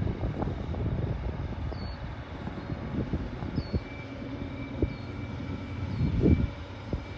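Diesel-electric TasRail TR-class locomotives hauling a freight train up a grade toward the listener: a steady low engine rumble, with a louder low bump about six seconds in.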